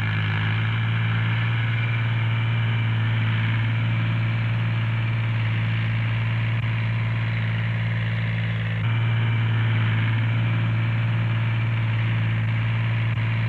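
Ford diesel tractor engine running steadily under load while pulling a plough through heavy soil, with a small jump in level about nine seconds in.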